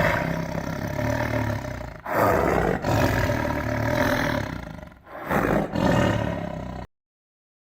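Animal roar sound effects, several long roars one after another, cutting off to silence near the end.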